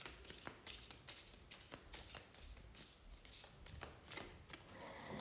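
A deck of tarot cards being shuffled by hand to clear the deck before a reading: a faint, irregular run of soft card flicks and taps.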